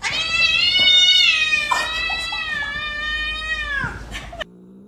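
Agitated domestic cat yowling: one long drawn-out call of about four seconds that bends down and breaks off at the end.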